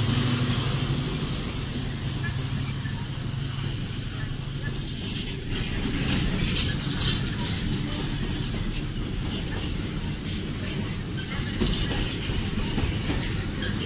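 Freightliner Class 70 diesel locomotive's V16 engine running as it passes, its low hum fading over the first few seconds. From about five seconds in, container wagons roll by with a rhythmic clickety-clack of wheels over the rail joints.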